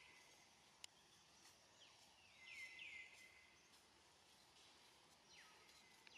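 Faint outdoor background hiss with a few distant bird chirps: short falling calls, three in quick succession about halfway through and another near the end. There is a single faint click about a second in.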